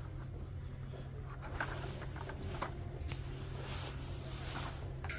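Cardboard-backed Hot Wheels blister packs being flipped through on a metal display peg, with a few faint rustles and clicks, over a steady low hum.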